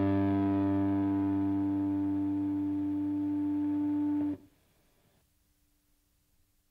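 Distorted electric guitars and bass holding the final chord of a rock song, ringing steadily and slowly fading, then stopping abruptly about four seconds in. A faint low hum remains near the end.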